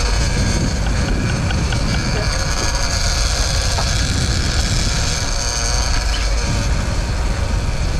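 Wind rushing over the microphone and the sport-fishing boat's engine running, with faint rapid ticking from a big-game trolling reel being cranked in on a hooked fish.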